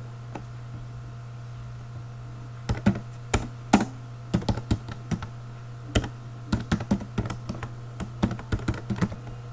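Typing on a computer keyboard: irregular keystroke clicks in short runs, starting a few seconds in, over a steady low hum.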